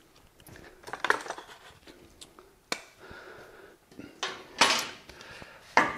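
Pieces of wood and plywood handled on the metal table of a sliding table saw: scattered knocks, clatters and scrapes, the loudest about three-quarters of the way through. The saw itself is not running.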